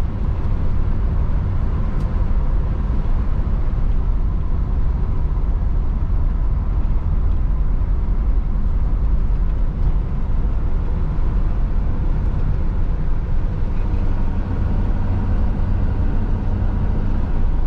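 Classic 1970s car's engine running steadily while driving, a continuous low rumble with no revving up or down.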